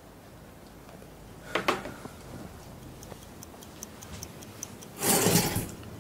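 A wristwatch ticking, fast and even at about five or six ticks a second, for a second or two. A sharp double click comes before the ticking, and a louder short rush of noise follows it.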